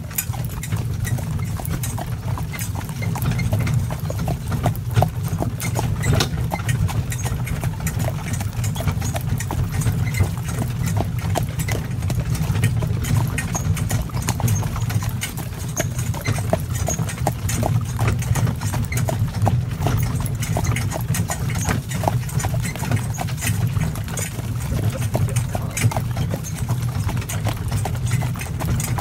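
Gelderlander horse's hooves clip-clopping at a steady working pace as it pulls a driving carriage, with many small knocks and rattles over a steady low rumble.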